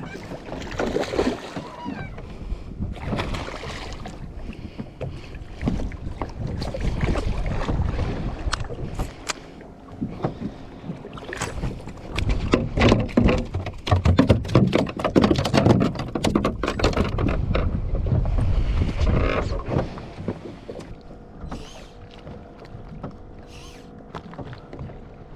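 Wind and water noise around a small fishing boat at sea, with a dense run of sharp clicks and knocks from about halfway through that eases off near the end.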